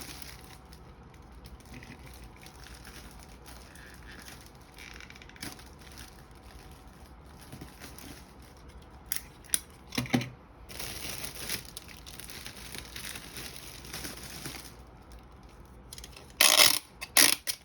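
Gift-basket wrap crinkling and rustling as it is handled, folded and tucked, with a few sharp crackles about nine to ten seconds in and loud crinkling bursts near the end.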